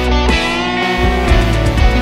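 Instrumental background music, a guitar-led track with a bending melody line over bass and a steady beat.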